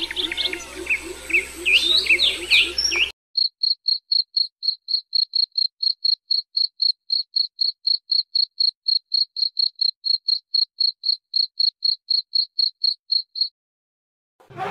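Songbird chirping in quick rising whistled notes over a low rapid pulsing, cut off abruptly about three seconds in. Then a cricket chirps steadily in short, even, high chirps, about four or five a second, and stops about a second before the end.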